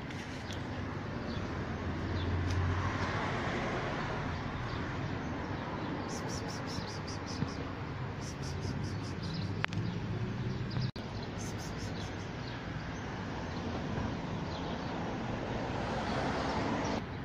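Steady outdoor background noise, like distant traffic, with two short runs of high, rapid chirping.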